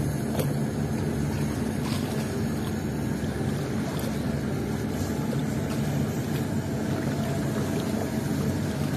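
A boat engine running steadily, a low even drone that holds the same note throughout, with a hiss of water and air noise over it.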